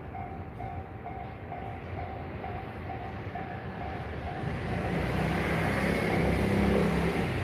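Japanese railway level-crossing warning bell sounding its repeated electronic 'kan-kan' chime, about two and a half strikes a second, while a train runs through the crossing; the train's rumble swells after about four seconds and nearly drowns the bell.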